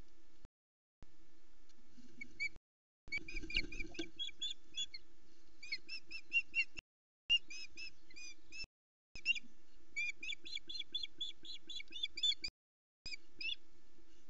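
Ospreys at the nest giving rapid series of sharp, whistled chirping calls, several a second, as the male arrives with a fish. There is a brief low rush about three seconds in, and the audio drops out briefly several times over a steady low hum.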